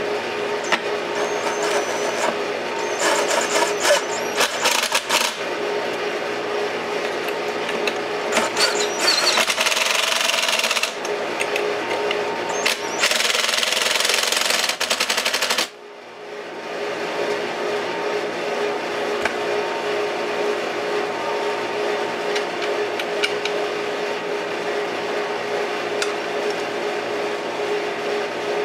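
A DeWalt cordless drill run in several bursts, driving screws on a cut-off saw's housing; the longest burst stops suddenly about halfway through. A steady hum continues throughout.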